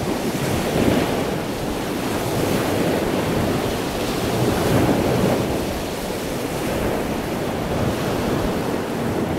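Ocean surf: a steady rush of waves washing in, swelling and easing every few seconds.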